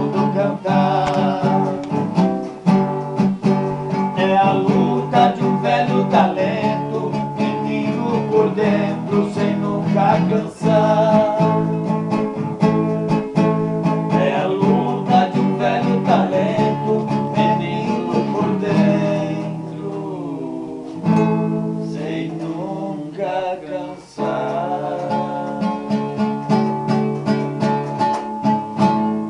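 Music: an instrumental ending to a Brazilian country song, led by plucked and strummed viola (the Brazilian ten-string guitar).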